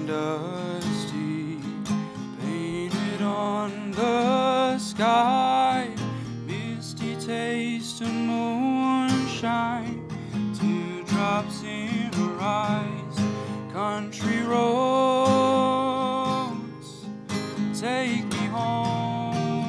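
A young man singing solo while strumming an acoustic guitar, the voice carrying a slow melody with long held notes over steady strummed chords.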